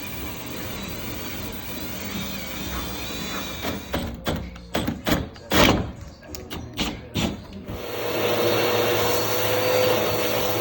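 Power drill boring into a carbon fiber hood: a run of short on-off bursts about four seconds in, then the drill running steadily with a whine from about eight seconds in.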